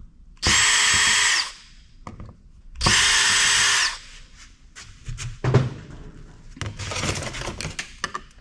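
Electric screwdriver running in two bursts of about a second each, spinning up and winding down each time, as it backs out the screws holding an IDE hard drive's circuit board. This is followed by scattered light clicks and knocks of small parts being handled.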